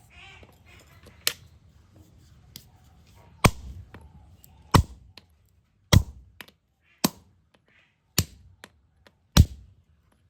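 Hammer striking metal in a steady rhythm of about one blow a second, seven sharp blows in all.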